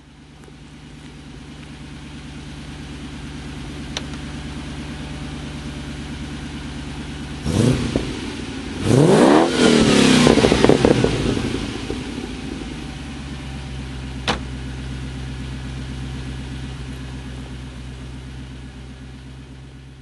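TVR 350i's 3.5-litre Rover V8 idling, heard at the exhaust, given a short throttle blip about seven seconds in and then a longer rev that climbs and falls back to idle a few seconds later. A sharp click is heard once before and once after the revs.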